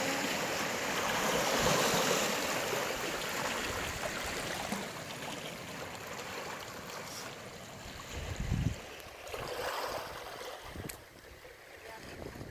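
Sea water washing and lapping among shoreline rocks, louder in the first few seconds and slowly fading, with gusts of wind buffeting the microphone in the second half.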